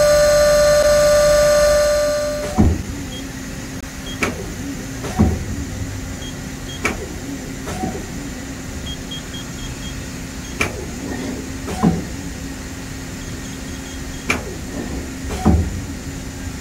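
Mori Seiki NT3100 CNC lathe's spindle running at steady speed with a high whine, winding down about two and a half seconds in. Then comes a series of sharp clunks every one to two and a half seconds as the tool turret indexes, over a steady low hum from the machine.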